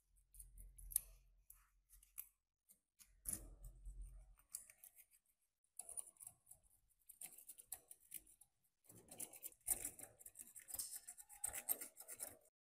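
Metal tweezers and a blade picking and scraping thick rust crust off an antique meat grinder part: crackly scratching with small clicks as flakes break away, busier and denser near the end.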